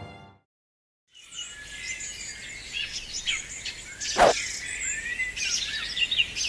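Background music fading out, then after a short silence a nature ambience of many birds chirping and whistling over a steady high hiss. Partway through comes a single sharp pop.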